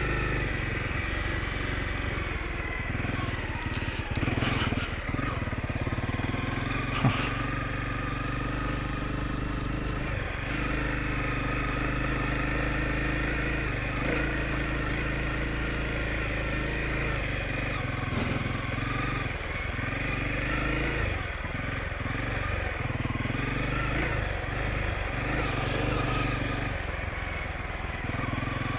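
Honda CRF250L's single-cylinder four-stroke engine running under way on a dirt road, its note shifting in steps a few times as the throttle and gears change. There is one sharp knock about seven seconds in.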